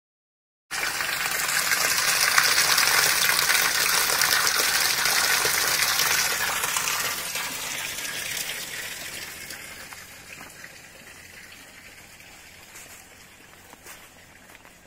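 Spring water running out of the hillside and splashing through a small stone channel, a steady gushing that starts abruptly and grows fainter over the second half.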